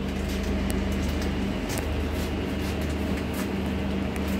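Steady hum of a stationary Indian Railways third-AC coach's air conditioning, with a low constant drone and a few faint ticks.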